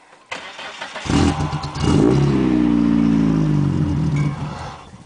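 Dodge Neon four-cylinder engine cranking and catching on a cold start, revving up about two seconds in. It runs briefly with its speed sagging, then dies away: the MegaSquirt cold-start tune is not right yet.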